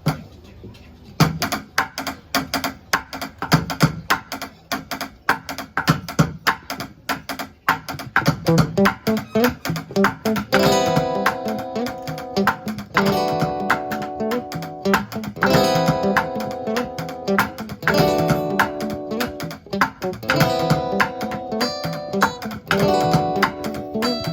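A live band plays the instrumental intro of a fast song. A sharp, even beat starts about a second in, and guitar and bass join around eight to ten seconds in, playing a repeating chord pattern.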